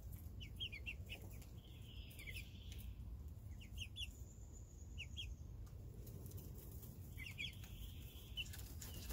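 Young backyard chickens (pullets a couple of months old) peeping and cheeping softly. The short high chirps often come in quick pairs and repeat on and off.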